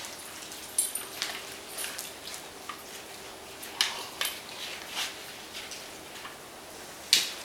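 Irregular sharp clicks and scuffles of dogs' claws on a ceramic tile floor as a small puppy and a larger dog play, with the loudest click near the end.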